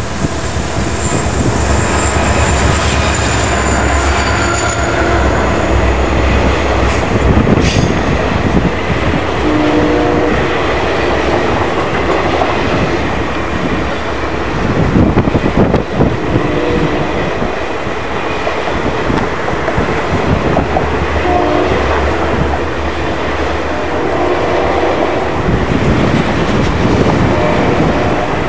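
A long passenger train of circus cars rolling past at speed, its wheels clicking and rumbling over the rails. The heavy engine hum of the departing diesel locomotives fades away in the first several seconds, leaving the steady roll of the cars.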